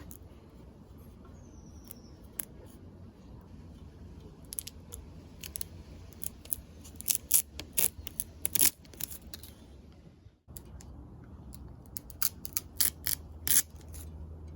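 Irregular sharp clicks and snips from hand work, coming in two clusters over a low steady hum, with a brief break about ten seconds in.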